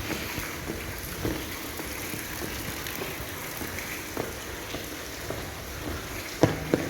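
Footsteps at a walking pace crunching on the gravel ballast of a railway track, about two a second over a steady outdoor hiss, with two louder knocks near the end.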